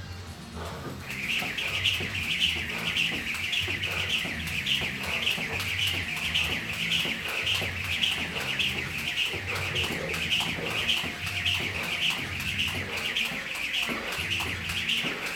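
Jump rope skipping: a rhythmic, high-pitched whir with each turn of the rope, starting about a second in and repeating about two to three times a second.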